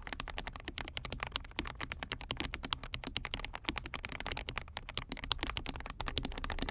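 Fast, continuous typing on a mechanical keyboard fitted with KTT Baby White linear switches, pre-lubed: a rapid stream of keystroke clacks.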